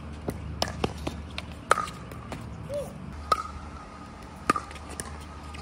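Pickleball paddles striking a plastic pickleball during a doubles rally: about eight sharp, hollow pops at uneven intervals, some with a short ring, the loudest about a second and a half in and again past four seconds.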